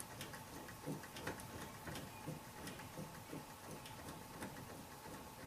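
Faint ticking from a 4th-gen Firebird's pop-up headlamp mechanism as its manual raise knob is turned by hand: small clicks about two to three a second, with soft knocks.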